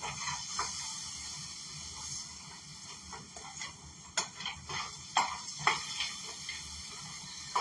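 Nuts sizzling in a hot frying pan coated with cooking spray, with a steady hiss. A few sharp clicks come in the second half as the nuts are tossed and stirred.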